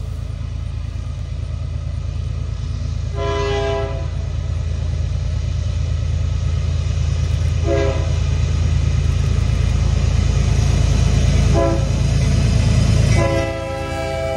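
Diesel freight locomotive approaching with its engine rumble building, sounding its air horn four times: a blast, two short toots, then a long blast near the end.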